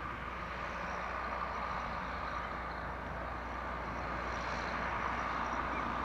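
Fendt 415 tractor engine running steadily under load while pulling a Kverneland plough.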